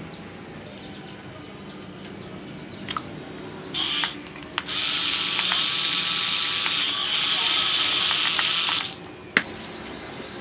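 Two small yellow plastic DC gear motors of a homemade paddle-wheel boat whirring as they spin the paddle wheels, a short run about four seconds in and then about four seconds of steady running that stops abruptly. A few sharp clicks around the runs.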